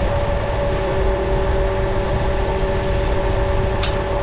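Tractor engine idling steadily with a low rumble and a constant whine. There is one short, sharp click near the end.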